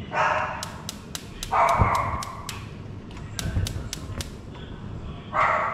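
A dog barking a few times in short loud bursts. Between the barks come three quick runs of sharp clicks, a handful at a time.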